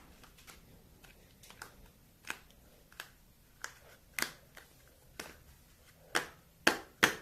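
Slime being poked with fingers in its container, making short sticky clicks and pops at uneven intervals, coming quicker and louder near the end.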